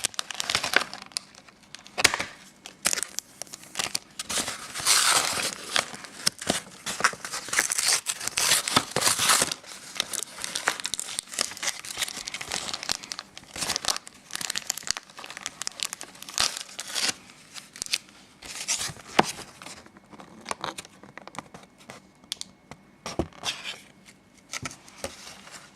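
Plastic blister packaging and foil wrapping being torn open and crinkled by hand, with irregular crackling, tearing and sharp clicks, busiest in the first half and thinning toward the end.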